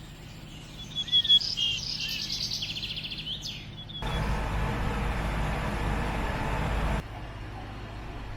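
Birds singing, with quick high chirps and trills. A few seconds later comes a stretch of steady rushing noise that starts and stops suddenly.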